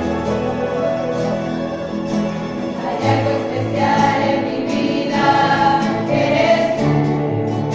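Mixed choir of young men and women singing a hymn together, accompanied by several strummed acoustic guitars.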